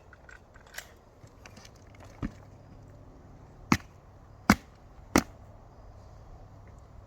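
Rifle shots from an M1A SOCOM 16 firing 7.62×51 mm rounds: one lighter bang a little past two seconds in, then three loud shots in quick succession about three quarters of a second apart.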